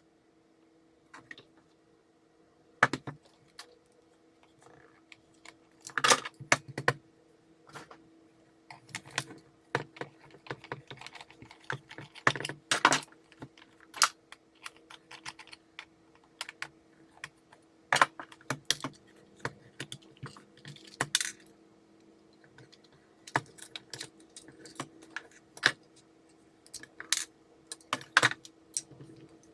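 Irregular clicks, taps and light rattles of small plastic and metal parts being handled, as during the disassembly of a cordless lantern work light. A faint steady hum runs underneath.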